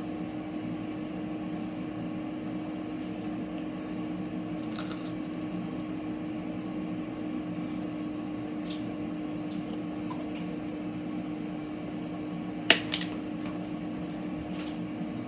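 Steady low hum from a kitchen appliance, with a few short clicks and knocks over it; the loudest is a quick double knock about thirteen seconds in.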